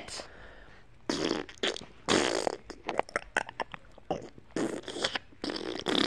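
Barbecue sauce being squeezed from a plastic squeeze bottle onto a spoon, sputtering out in a series of short, irregular bursts that start about a second in.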